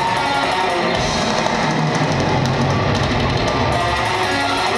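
Live heavy rock band playing loudly: electric guitars over a drum kit, heard from the audience floor of the venue.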